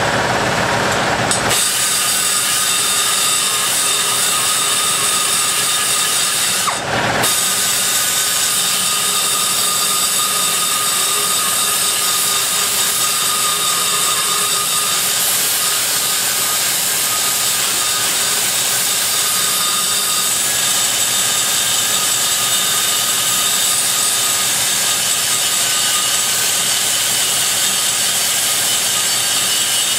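Die grinder running at high speed, its burr cutting metal out of the aluminum exhaust port of a Dart Pro 1 big-block Chevy cylinder head: a steady high whine over a grinding rasp, with a brief dip about seven seconds in.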